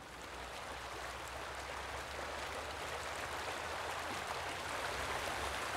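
Floodwater flowing: a steady, even rush of water that fades in over the first second and grows slightly louder.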